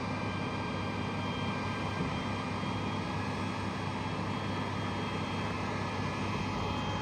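Steady aircraft noise inside a KC-135 cockpit on the ground: a constant drone with a few faint high whining tones running through it.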